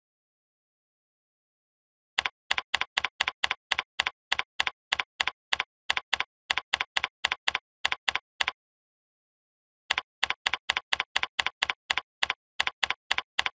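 Computer keyboard typing: a quick, even run of keystroke clicks, about four or five a second, stopping for about a second and a half midway before resuming.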